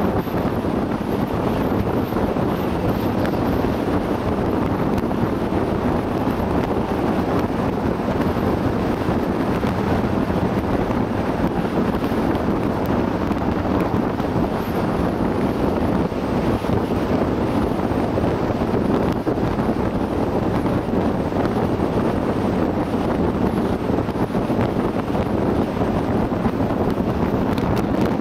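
Steady wind rushing over the microphone of a camera mounted on a moving vehicle's bonnet, mixed with the vehicle's road and engine noise.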